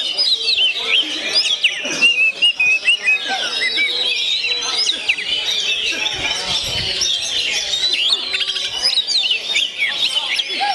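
Songbirds chirping and singing together, many quick, high calls overlapping without a break.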